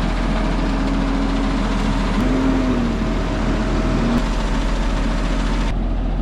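Self-propelled crop sprayer's diesel engine running steadily as it is driven off a low-loader trailer, the revs rising briefly and falling back about two seconds in.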